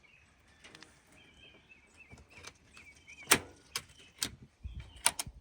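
Small door on a wooden chicken coop being handled and opened: a series of sharp knocks and clicks, the loudest about halfway through and a quick pair near the end.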